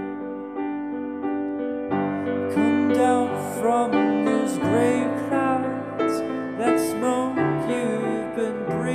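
Piano music with held notes, growing fuller about two seconds in.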